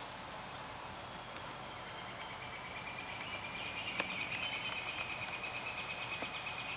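Faint, steady high-pitched insect buzzing or trill in the background, growing a little louder from about two seconds in, with a single sharp click about four seconds in.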